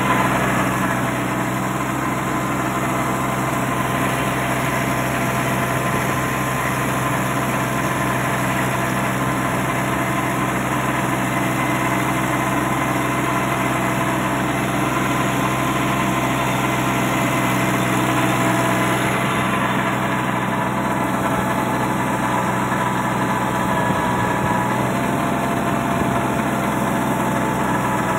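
Kubota 21 hp compact tractor's diesel engine running steadily, pulling a rotavator that churns the soil.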